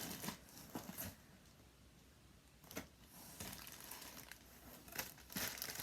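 Packaging being handled, faint scattered rustling and crinkling, with a quieter pause in the middle.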